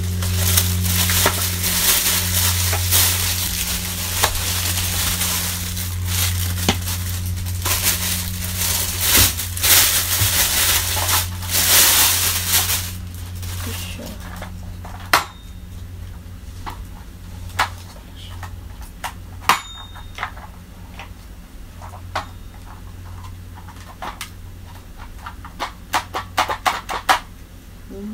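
Plastic wrapping crinkling and rustling loudly as a vacuum cleaner attachment is unwrapped, giving way about thirteen seconds in to scattered sharp clicks and knocks of hard plastic attachment parts being handled, with a quick run of clicks near the end. A steady low hum runs underneath.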